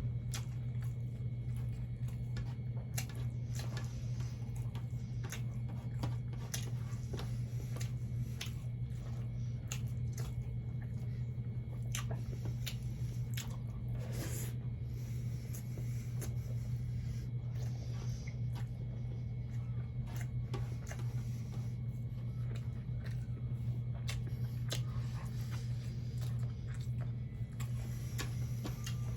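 Close-miked eating: wet chewing, smacking and small mouth clicks while eating fried catfish with rice, over a steady low hum.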